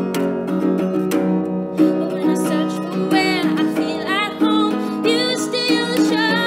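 Acoustic guitar strummed with steady chords; a woman's singing voice comes in over it about three seconds in, with gliding, wavering notes.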